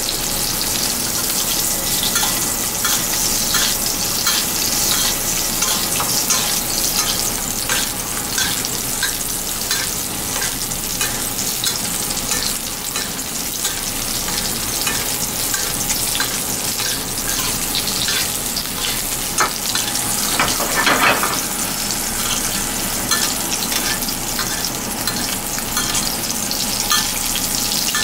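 Oil sizzling and crackling steadily in a steel pan as rolled pieces of fish shallow-fry, with a spoon basting hot oil over them. There is one louder burst about three quarters of the way through.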